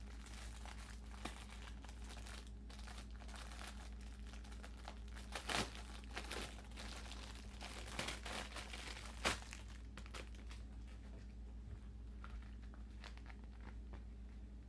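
Packaging crinkling and rustling as an item is unwrapped by hand, in irregular crackles with a few louder ones around the middle.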